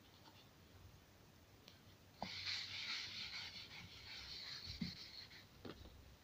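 A cloth rubbing marker writing off a smooth-surfaced homemade whiteboard, a steady wiping hiss that starts with a light knock about two seconds in and lasts about three seconds. A soft thump and a click follow near the end.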